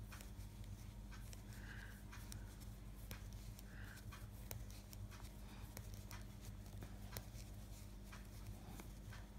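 Knitting needles clicking and tapping softly and irregularly as stitches are worked, over a steady low electrical hum.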